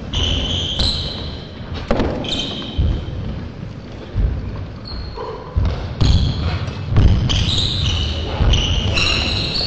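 Badminton rally in a large sports hall: court shoes squeaking again and again on the floor, with footfalls and sharp racket hits on the shuttlecock.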